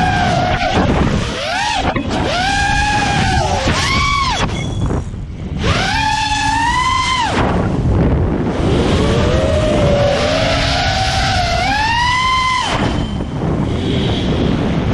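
FPV freestyle quadcopter's brushless motors and Ethix P4 Candy Cane 5.1x4x3 propellers whining, the pitch rising and falling with the throttle. The whine drops away several times, most deeply about five and eight seconds in, under a rush of wind noise.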